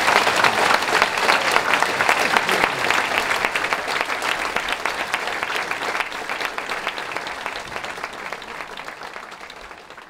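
A large audience applauding, many hands clapping together, dying away gradually toward the end.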